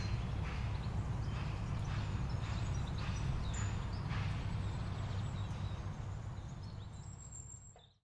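Outdoor ambience: a steady low rumble with faint bird chirps over it, fading out near the end.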